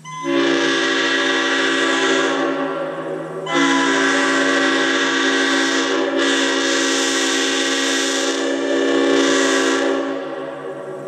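Leslie RS5T five-chime locomotive air horn blown on compressed air: a short blast, then after a dip a long blast of about six seconds with a strong rush of air over the chord. Run at 160 psi, it is overblowing from too much pressure.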